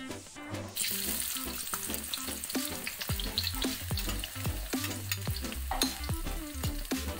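Chopped shallots and garlic hitting hot cooking oil in a wok and sizzling from about a second in, with the clicks and scrapes of a spatula scraping them from the bowl into the pan. Background electronic music with a low, thumping beat runs underneath.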